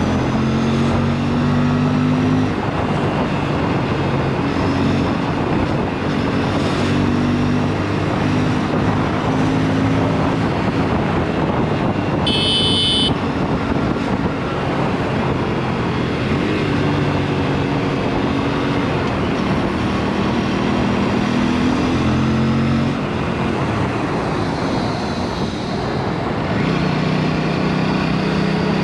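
Aprilia superbike engine running through an exhaust with the dB killer removed, under steady wind rush, its pitch stepping up and down with throttle and gear changes. A brief high-pitched beep sounds about twelve seconds in.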